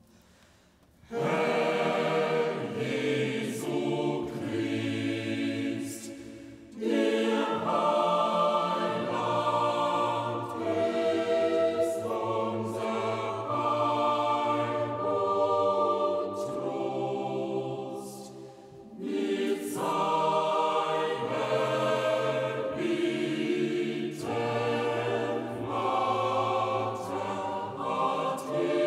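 Choir singing slow, sustained chords in long phrases, with brief pauses between phrases about six and eighteen seconds in.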